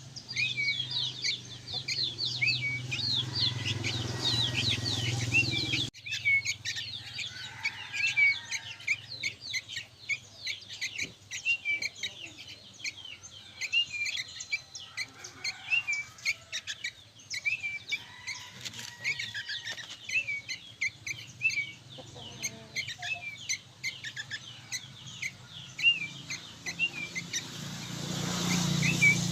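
Young sooty-headed bulbuls (kutilang) chirping busily: a dense, unbroken run of short, high chirps, several a second. A low hum runs under the first few seconds and returns near the end.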